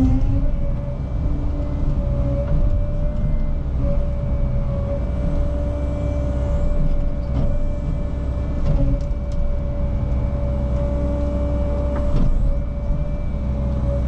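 Caterpillar 306 mini excavator's diesel engine running steadily at working revs, with a constant high hydraulic whine over the rumble. A few sharp knocks come partway through and near the end as it works brush.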